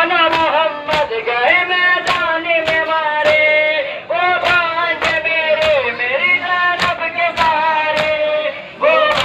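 A noha (Shia mourning lament) sung with long wavering held notes, over the sharp, steady slaps of men beating their chests in matam, just under two a second.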